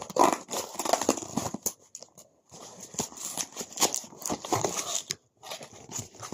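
Scissors cutting open a cardboard parcel, with the box being handled: irregular snips, scrapes, rustles and knocks, pausing briefly twice.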